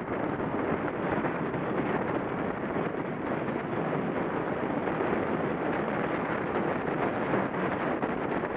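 Steady rushing wind noise over the microphone of a camera mounted on a track bike riding fast in a paceline on an indoor velodrome.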